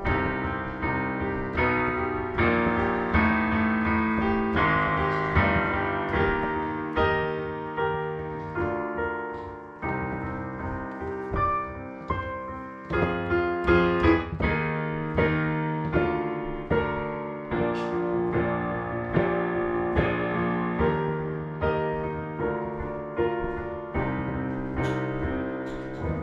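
Background piano music, a steady flow of notes with no other sound.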